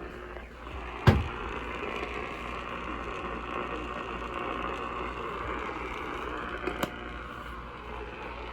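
Radio receiver hissing with static while tuned to a weak station, with a sharp click about a second in and a fainter click near seven seconds.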